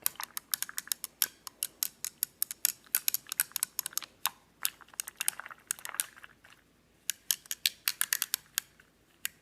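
Chopsticks clicking against a dish in quick, irregular taps, with a short pause about two-thirds of the way through.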